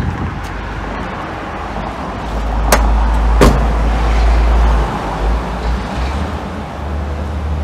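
Car noise heard from inside a car, with a deep rumble swelling between about two and five seconds in. Two sharp knocks come about three seconds in, less than a second apart: a car door being opened and shut.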